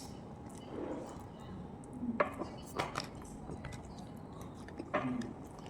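A person chewing and eating close to the microphone, with small wet mouth clicks and a few short louder bites or murmurs about two, three and five seconds in.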